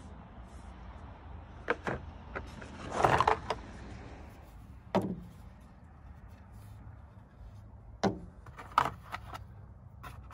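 Handling noise while fitting the limbs of a takedown recurve bow: scattered clicks and knocks of the limb, riser and a metal Allen wrench, with a louder short rattle about three seconds in.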